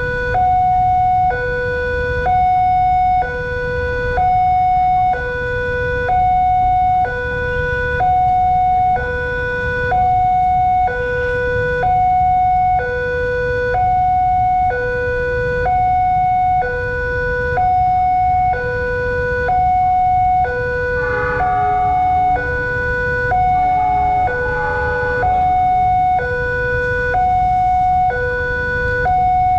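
Indonesian railway level-crossing warning siren sounding a two-tone hi-lo alarm, switching pitch about once a second, warning that a train is approaching and the crossing is closed. Road traffic rumbles underneath, and other pitched sounds briefly mix in about 21 seconds in and again near the end.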